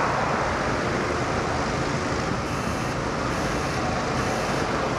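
Steady wind rushing and buffeting over the microphone high up in open air. From about halfway in, a faint high-pitched beep repeats about once a second.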